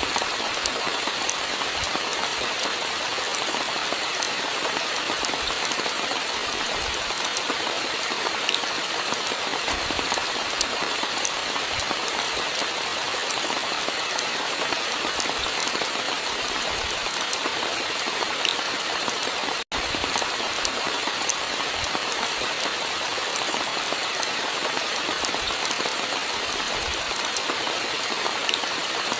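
Steady rainfall: an even hiss of rain with many small drop clicks on a surface. The sound cuts out for an instant about two-thirds of the way through.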